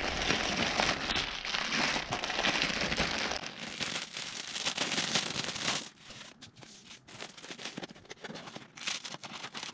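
Plastic packaging crinkling and rustling as a parcel is unwrapped by hand: a plastic courier mailer and a plastic-wrapped garment. From about six seconds in it drops to quieter, scattered handling clicks.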